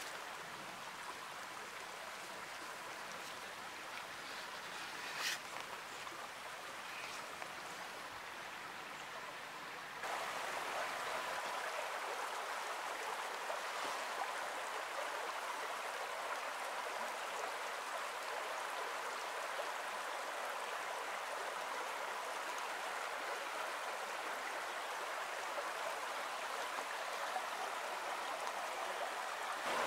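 Steady rushing of a shallow woodland brook, which jumps suddenly louder and fuller about a third of the way in. A single brief sharp sound stands out shortly before that.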